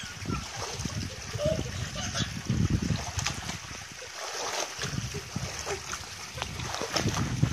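Pool water splashing and sloshing around people moving in it, with uneven splashes.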